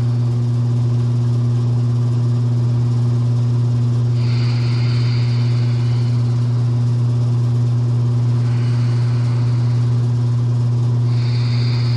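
A steady, loud, low droning tone with fainter higher overtones, unchanging throughout. A faint higher shimmer enters about four seconds in, fades, and returns near the end, in the manner of an ambient meditation drone.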